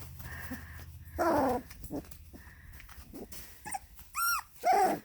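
Puppies at play vocalizing: a short gruff growl-like sound about a second in, then two high-pitched yelps near the end.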